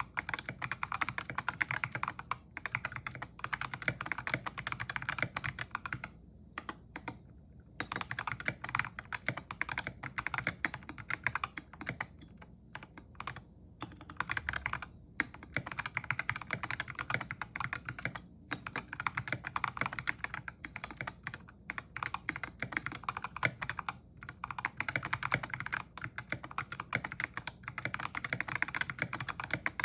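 Fast typing on a tape-modded Epomaker GK61xs mechanical keyboard with Ajazz Kiwi tactile switches and SA-profile keycaps. Quick, continuous runs of keystrokes are broken by several short pauses.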